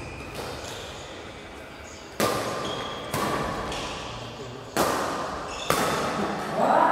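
Badminton rackets striking a shuttlecock in a rally: four sharp hits about a second apart, each ringing out in the hall's echo. A voice calls out near the end.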